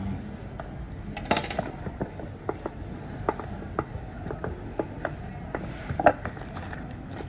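Irregular small clicks and taps of computer hardware being handled: the parts of a Thunderbolt 3 enclosure and an NVMe SSD being picked up and fitted. A louder clatter comes about a second in and again near the six-second mark.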